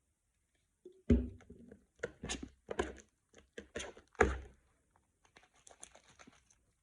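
Handling noises: a run of irregular knocks and thuds, the loudest about a second in and just after four seconds, then lighter clicking near the end.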